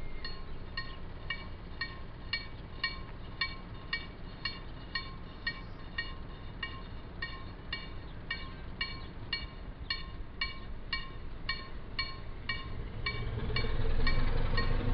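Railway level-crossing warning bell ringing in quick, even strokes, about two a second, heard from a passing train over the low rumble of the train's running. Near the end the train's rumble grows louder.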